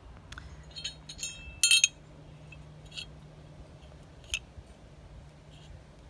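Small clinks and taps of a little metal bell and glass wind-chime parts being handled, the loudest a bright clink with brief ringing a little under two seconds in, followed by a few single light taps.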